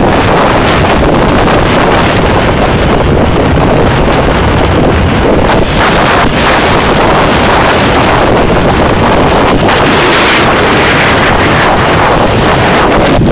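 Loud, steady wind rushing and buffeting over the microphone of a camera carried on a motorcycle riding fast, with no engine note standing out above it.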